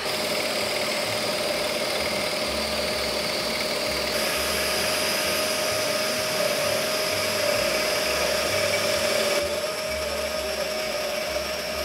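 Axminster Professional AP535SS scroll saw running steadily, its fine blade cutting a curve in plywood.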